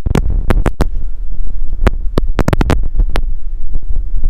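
Wind buffeting the microphone, a heavy low rumble, with many sharp irregular clicks and crackles over it.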